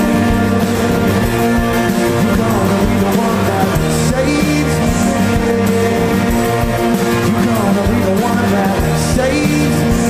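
A rock band playing a song live, with guitars, drums and singing at a steady high level.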